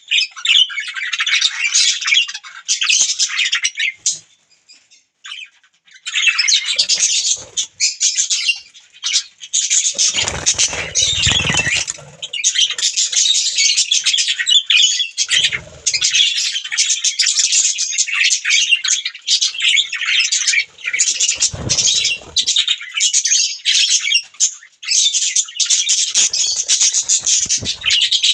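Budgerigars chattering and chirping in fast, continuous high warbles, pausing for a couple of seconds about four seconds in. A few dull low thuds come through the chatter.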